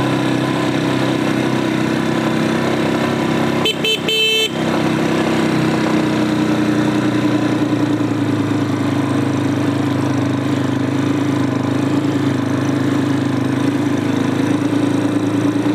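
Tekken 250 motorcycle engine running steadily while riding a dirt road, with a brief horn honk about four seconds in.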